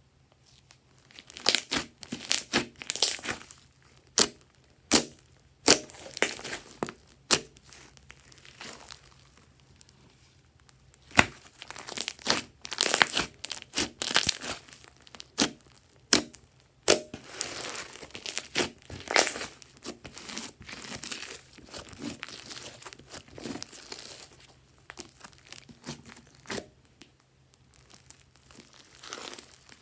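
Thick glossy slime being stretched, folded and pressed by hand. It gives off irregular sticky crackles and sharp pops of trapped air, in clusters with short quiet pauses between.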